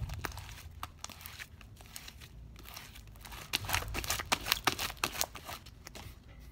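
Hands kneading and squeezing sticky, bubbly homemade clear slime, giving rapid crackling, popping clicks; sparser about a second in, then thick again for a couple of seconds past the middle.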